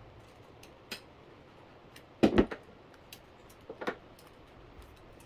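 Hands working a jumper cable clamp and wire: scattered light clicks, a louder pair of knocks a little over two seconds in, and another smaller pair near four seconds.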